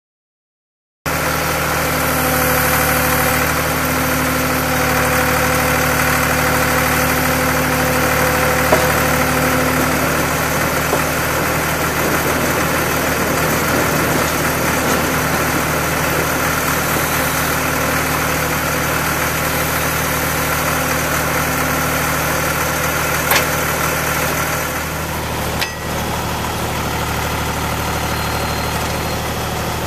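The engine of a rail-mounted railroad tie inserter runs steadily. It starts about a second in, with a brief dip near the end.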